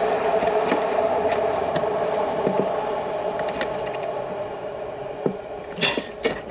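Small plastic clicks and scrapes from a pen being worked into a car radio's release holes to free it from the dash, with louder clicks near the end. Underneath is a steady hum that slowly fades.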